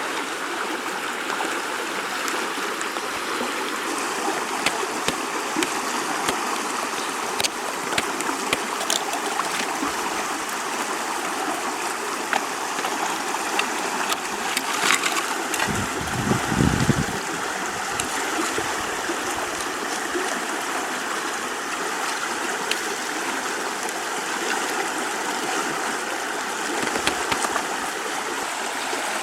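River water flowing steadily, with scattered small clicks and a brief low rumble about halfway through.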